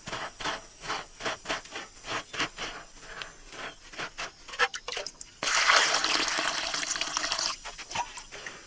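Hands scraping and scooping dry, gravelly soil in quick repeated strokes, then, about five seconds in, water poured from a clay pot rushing into a hollow in the soil for about two seconds.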